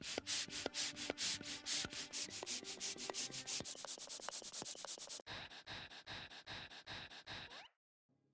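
Hand air pump being worked fast: a rapid run of hissing strokes, about four or five a second, that turn weaker and slower after about five seconds and stop shortly before the end.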